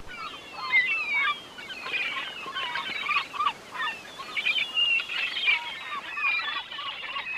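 A flock of birds calling, with many short chirps and swooping calls overlapping densely.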